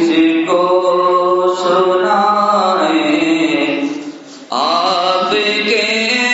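A voice singing a naat, an Urdu devotional poem in praise of the Prophet, in long held notes that glide between pitches. The singing breaks off briefly about four seconds in, and a new phrase then begins.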